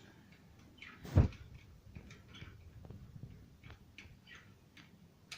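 A single sharp knock about a second in, followed by faint scattered clicks and rustles: handling noise from fitting the bicycle's front wheel into the fork.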